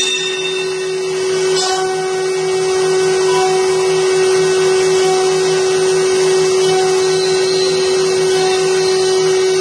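CNC router spindle running with a steady whine as its small end mill cuts into a wooden baluster turned on the machine's rotary axis, with an even hiss of cutting and a faint regular pulsing underneath.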